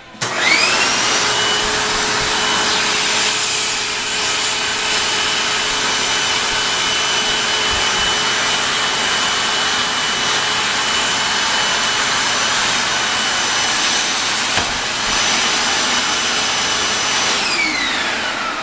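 Vacuum cleaner switched on, its motor whine rising to speed in the first second or two, running steadily, then switched off and winding down near the end.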